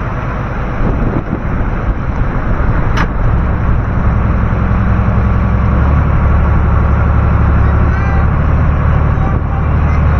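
A boat's engine running with a steady low drone that grows a little louder partway through, and one sharp click about three seconds in.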